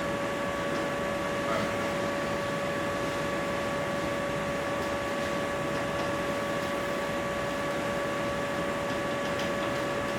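Room tone of a lecture recording: steady hiss with a constant hum made of several steady tones, with no speech.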